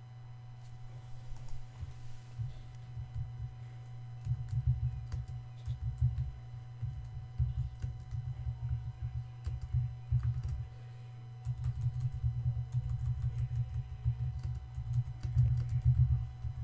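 Typing on a computer keyboard in rapid runs of keystrokes, with a short pause about ten seconds in.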